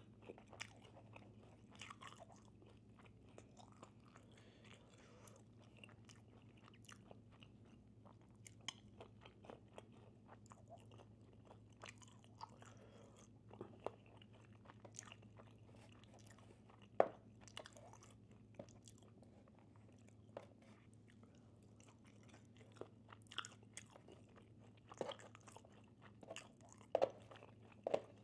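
Quiet chewing and biting of Panda Express food close to the microphone: irregular crunches and mouth clicks, one sharper crunch a little past halfway and several more near the end, over a steady low hum.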